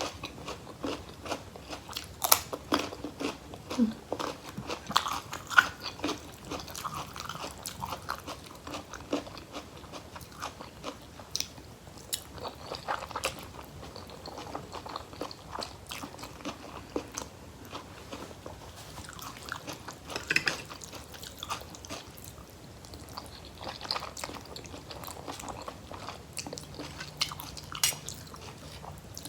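Close-miked biting and chewing of crunchy food, with many sharp crunches throughout: someone eating raw vegetables and noodles with curry.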